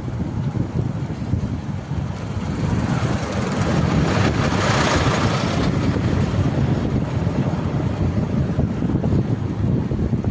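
Wind buffeting the microphone and tyres rumbling over paving stones while riding along at speed, with a louder rush of noise about four to five seconds in.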